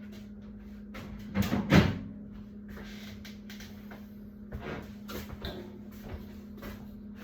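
Kitchen cupboard door being opened and shut: two loud knocks close together about a second and a half in, then lighter clicks and knocks of handling, over a steady low hum.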